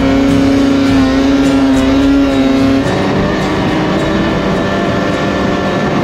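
Polaris RMK 600 snowmobile's two-stroke twin engine running hard at high revs, its pitch stepping down about three seconds in as the throttle eases.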